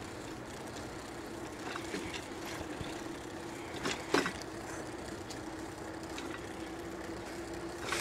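Electric mountain bike riding along a trail: a steady motor hum over a hiss of rolling noise, with a few sharp knocks, the loudest about four seconds in.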